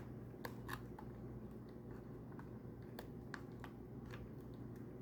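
Faint, scattered small clicks and rustles of an Xbox power brick's plastic and rubber parts being handled and tucked into place, over a low steady hum.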